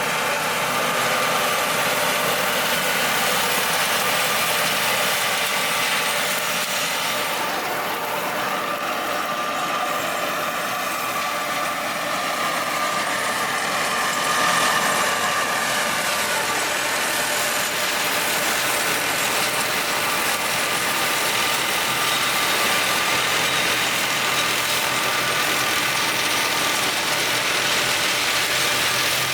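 F1-180 flail mower running, with a steady engine drone that dips and rises slightly in pitch near the middle.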